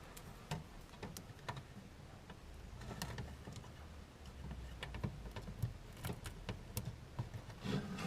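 Faint, irregular light clicks and taps from handling a plastic instrument-cluster trim piece while strips of Madeleine fabric anti-squeak tape are stuck onto it.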